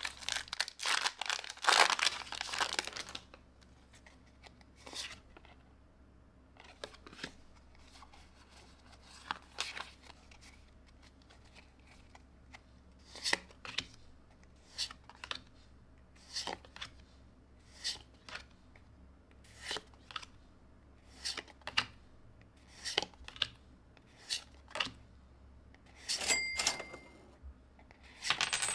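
Foil trading-card booster pack wrapper being torn open by hand, a loud crinkly tearing over the first couple of seconds. Then cards are slid one behind another in the hand, a soft flick about every second and a half.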